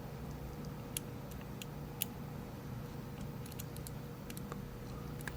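Faint, scattered clicks of a lock pick working the pins of a Rav Bariach LocXis pin-in-pin euro cylinder under light tension, two clearer clicks about a second apart near the start, over a steady low hum.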